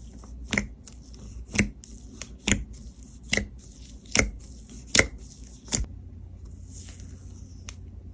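Fingers pressing into clear jelly slime in a tub. Each press gives a sharp, wet pop, seven in all, a little under a second apart. After that comes a softer squishing stretch.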